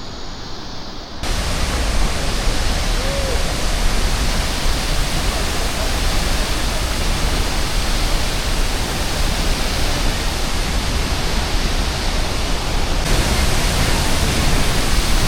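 A 75-metre waterfall plunging into its pool: a steady, loud rushing roar that cuts in suddenly about a second in.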